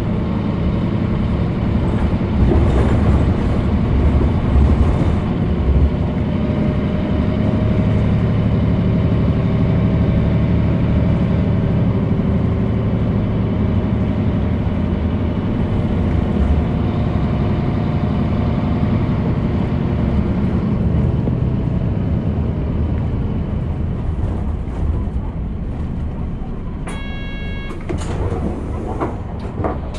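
Onboard running sound of a 2005 Mitsubishi Fuso Aerostar (PJ-MP35JM) diesel city bus: the engine and drivetrain hum steadily under way, then ease off about twenty seconds in. A short electronic tone sounds near the end.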